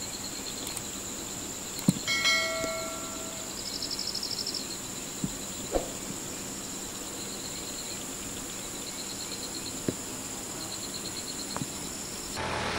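Insects droning steadily with a constant high whine, broken about two seconds in by a brief call of several pitched tones and, around four seconds, a fast high trill, with a few scattered sharp knocks. Near the end a louder rushing noise takes over.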